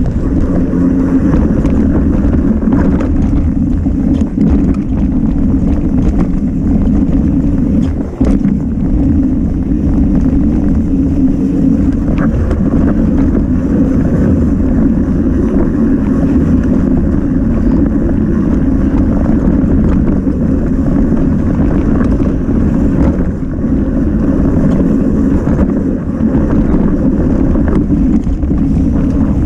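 Wind rushing over the microphone of a camera on a mountain bike racing downhill, with the bike's tyres and frame rattling over rough trail. The rush is loud and steady, with scattered knocks from bumps.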